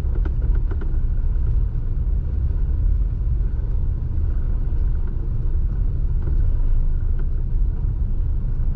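Maruti Alto CNG driving, heard inside the cabin: a steady low engine and road rumble with a few light tak-tak taps near the start and again past the middle. The taps are the gearbox knock that shows in third gear under light throttle, on a car under 6,000 km.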